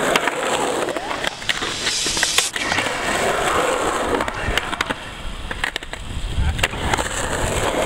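Skateboard wheels rolling over rough pavement, with repeated sharp clacks of the board and trucks as the skater rides onto a concrete quarter pipe.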